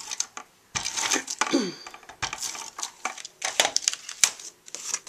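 Cardstock being handled and pressed down on a table: paper rustling with scattered light taps and clicks.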